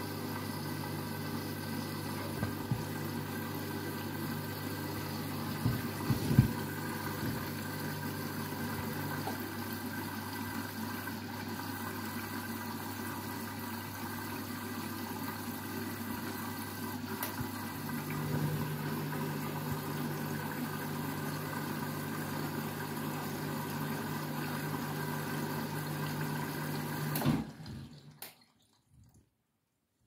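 Candy washing machine on its Rapid 14 main wash: the drum motor hums steadily as the drum turns, with water sloshing inside and a few knocks about six seconds in. The motor tone shifts partway through, and the sound cuts off suddenly near the end.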